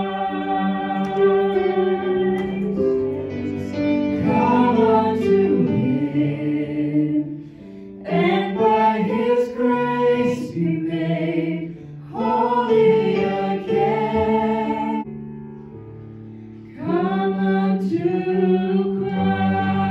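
Four voices, three women and a man, singing a slow devotional song together into handheld microphones, with long held notes and a few short breaks between phrases.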